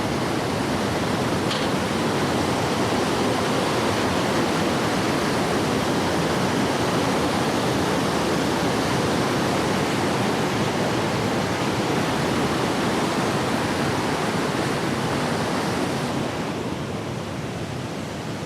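Waterfall rushing: a steady, dense noise of falling water that turns slightly quieter and duller near the end.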